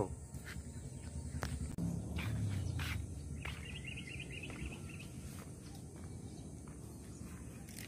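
Pond-side outdoor ambience: a steady high insect hum and a bird twittering briefly around the middle. Over it come a low rustle and a few sharp clicks as the camera and fishing rod are moved.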